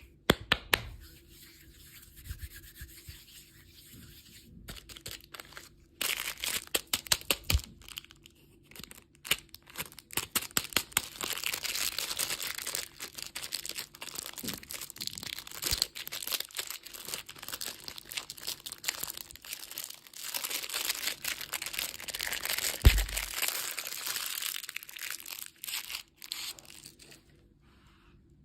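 Candy packaging being torn open and crinkled by hand. A few sharp taps come at the start. A dense crackling with many small clicks starts about six seconds in and stops shortly before the end.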